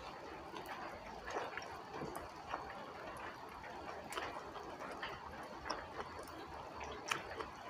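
Faint close-up eating sounds: a person chewing a mouthful of food, with scattered small wet mouth clicks and fingers picking at rice and leaves on a banana leaf.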